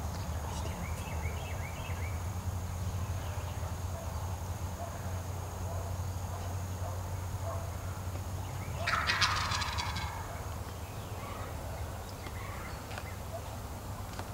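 Wild turkey gobbler gobbling once, about nine seconds in: a rapid rattling call lasting about a second.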